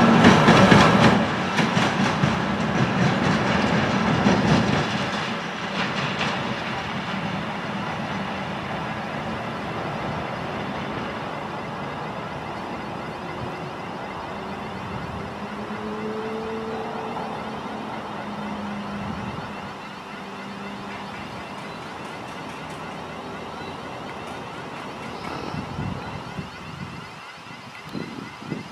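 ChME3 shunting diesel locomotive running light away down the track: loud at first as it passes close, then its diesel engine note fades steadily as it draws off into the distance.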